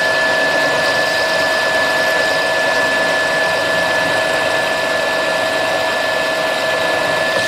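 Optimum BF30G mill-drill running steadily as a twist drill bores into a metal block, fed down by hand with the quill wheel. A steady whine of two held tones sits over the machine's even hum.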